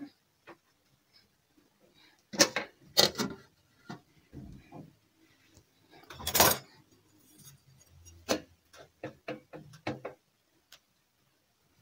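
Stainless-steel pots, lids and a metal serving spoon clanking and tapping while food is dished out: a few separate clanks, the loudest about six seconds in, then a quick run of lighter taps of the spoon in the rice pot near the end.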